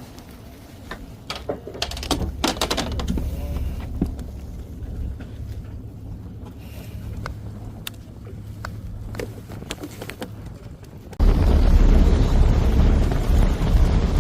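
Scattered knocks and clicks on a fishing boat over a steady low engine hum, then, about eleven seconds in, an abrupt switch to loud wind noise on the microphone.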